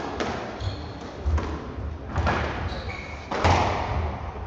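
Squash rally: a squash ball struck hard by the rackets and smacking off the court walls, about four sharp echoing hits a little over a second apart, the loudest near the end. A few brief squeaks of the players' shoes on the wooden court floor come between the hits.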